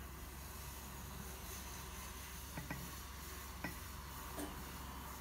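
Steady background hiss with a low hum, and a few faint clicks between about two and a half and four and a half seconds in.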